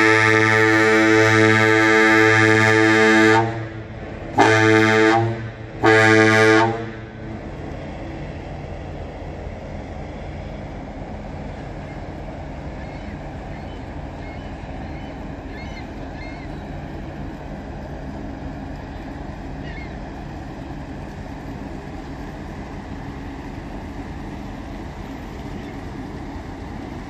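A self-unloading bulk freighter's ship horn: a long, deep blast cuts off about three seconds in, followed by two short blasts. After that only a low, steady rumble is left.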